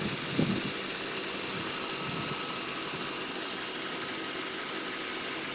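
BMW E39 540i's V8 engine idling with a rapid, steady ticking: a start-up tick that the owner says disappears after a few minutes of running. A brief low thump about half a second in.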